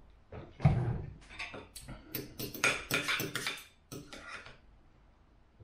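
A knock on the table about half a second in, then a knife and fork clinking and scraping against a dinner plate for about three seconds as food is cut.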